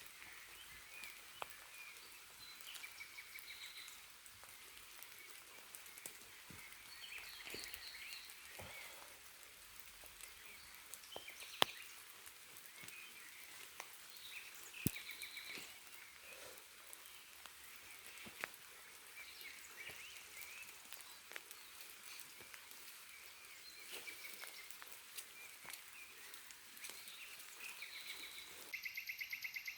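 Forest rain: a soft steady hiss with scattered sharp drips ticking on leaves, and small animal calls chirping and trilling throughout. Near the end a louder pulsing trill starts abruptly.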